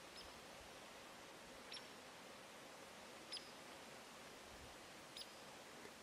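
Near-silent woodland quiet with a faint hiss, broken by about five brief, faint high-pitched chirps a second or two apart.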